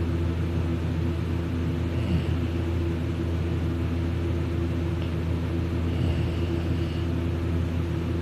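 Steady low hum throughout, with a sleeping man's snores faintly over it, about two seconds in and again around six seconds, roughly four seconds apart with his breathing.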